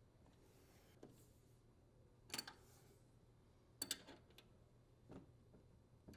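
Near silence broken by three faint, sharp clicks about a second and a half apart: a tool knocking and clicking on the dishwasher's metal frame.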